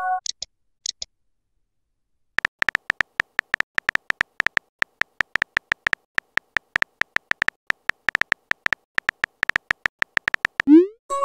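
Phone keyboard typing sound effect: a long run of quick, irregular clicks. Near the end comes a rising swoop and a short chime, a message alert.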